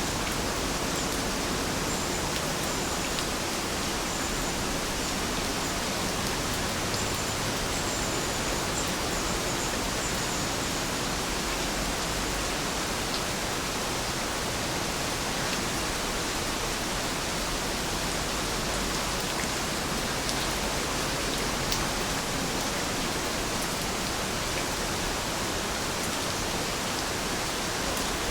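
Steady rainfall, an even hiss with no change in strength.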